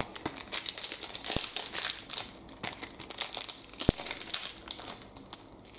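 Magic: The Gathering cards and their booster packaging being handled, crinkling and rustling in quick small crackles, with two small knocks.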